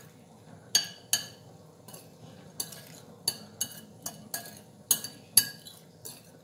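Spoon stirring corn salad with mayonnaise in a glass bowl, clinking against the glass about ten times at an irregular pace, each clink ringing briefly.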